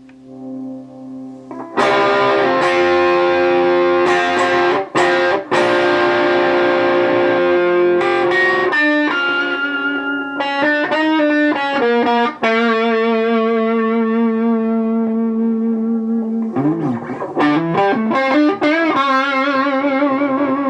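Electric guitar, a Jackson JS32 Dinky with a Seymour Duncan JB humbucker in the neck position, played through a crunch (light overdrive) tone. It plays strummed chords starting about two seconds in, then single-note lead lines with vibrato from about halfway on.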